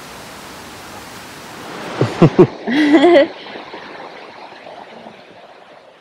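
Steady rushing hiss of falling water from the rainforest falls or stream. About two seconds in come a few loud, quick sliding sounds and a short wavering voice, after which the hiss turns duller and fainter.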